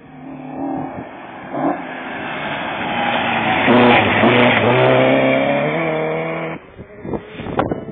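Historic rally car, a Mk1 Ford Escort, coming up the stage under hard acceleration and passing close by. Its engine note builds to its loudest as it goes past about four seconds in, then falls away as it drives off. Near the end, gusts of wind hit the microphone.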